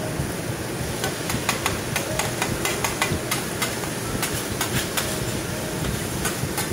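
Metal spatula clicking and scraping against a steel teppanyaki griddle and a metal bowl as beaten egg is poured and spread, with many sharp irregular taps starting about a second in over a steady hiss.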